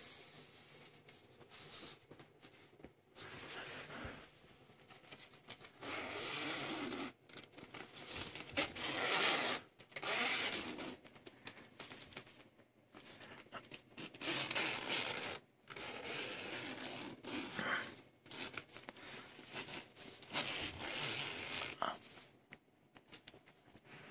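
A 3D-printed plastic zip slider run repeatedly along a jacket's zip, each pass a rasping noise one to three seconds long, with cloth rustling between passes.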